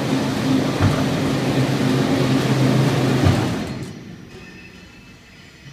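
2900 mm spindleless veneer peeling lathe running as it peels a log into a continuous veneer sheet: a loud, steady mechanical noise with a low hum and a couple of knocks. About three and a half seconds in it falls away to a much quieter hum.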